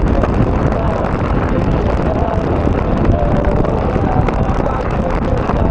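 Wind rumbling steadily on the microphone during a winter bicycle ride, mixed with the bike's rolling noise, with faint wavering squeaks running through it.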